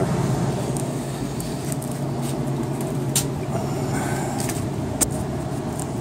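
Furnace blower running with a steady hum and rush of air, with two sharp clicks from the metal-mesh humidifier water panel being handled, one about three seconds in and one near the end.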